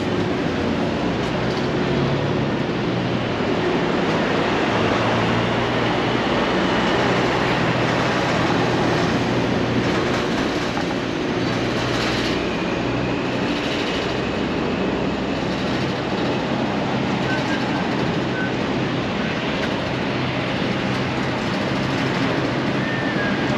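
Steady construction-site and street traffic noise: a constant rumble with a low machine hum beneath it, and a few faint short high squeaks late on.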